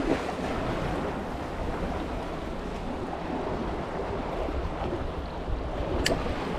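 Wind buffeting the microphone over the sea's waves, a steady rushing noise, with a single sharp click about six seconds in.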